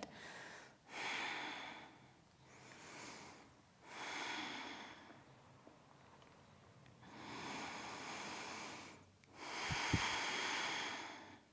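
A woman's slow, deep breathing: about five audible breaths, each a soft rush of air one to two seconds long, with short pauses between.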